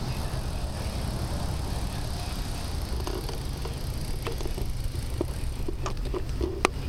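Wind buffeting the microphone of a bicycle-mounted camera while riding on a wet road, a steady low rumble. From about three seconds in come scattered light clicks and knocks, with one sharper click near the end.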